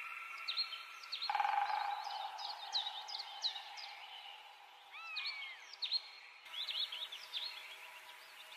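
Birds calling over a steady rush of river water: runs of quick, sharply falling chirps, and about five seconds in one longer arching whistle.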